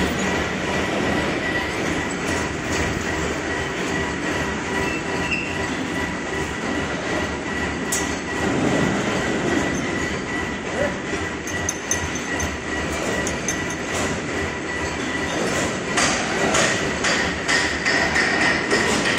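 Steel wire nail making machine running: a loud continuous metallic clatter with a steady high whine. The clatter turns sharper and clickier near the end.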